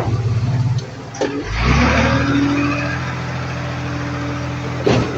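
Diesel engine of a heavy earthmoving machine running. It picks up load about a second and a half in, then holds steady, with a sharp knock just after a second in and another near the end.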